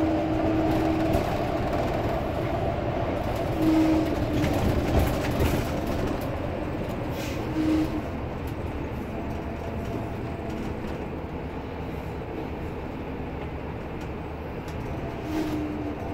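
Steady engine and road noise heard from inside a vehicle creeping in heavy traffic. A few short low tones sound over it: one right at the start and others about four, eight and fifteen seconds in.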